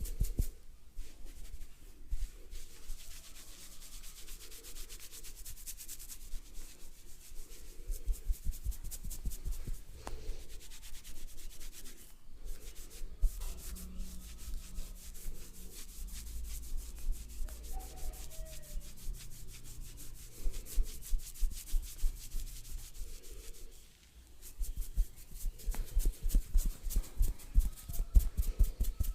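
Hands rubbing and rapidly tapping on a head of hair in a head massage, a fast patter of short strokes that comes in spells.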